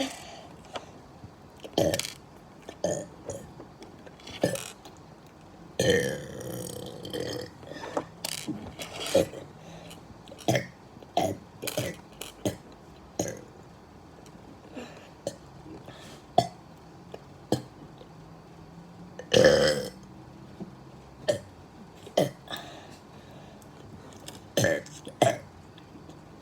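A person burping over and over, about thirty short burps a second or so apart. A longer, drawn-out burp comes about six seconds in, and the loudest burp comes around twenty seconds in.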